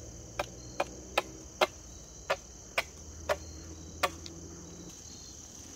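Hatchet chopping the end of a wooden pole: eight sharp strikes at about two a second, stopping a little past halfway. A steady high insect chorus runs underneath.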